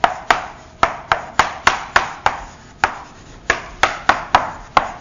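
Chalk writing on a chalkboard: an irregular run of sharp taps and short scrapes, about three a second, as each stroke of the letters goes down.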